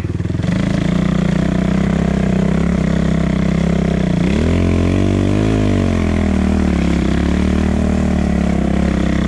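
250cc enduro motorcycle engine running steadily under the rider's throttle, revving up briefly about four seconds in and easing back down.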